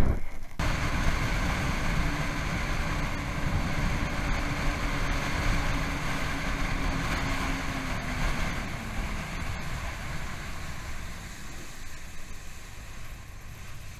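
Sea-Doo personal watercraft running under way across a lake, its engine tone steady over rushing wind and water. The engine note dips slightly about two-thirds of the way through, and the sound eases toward the end.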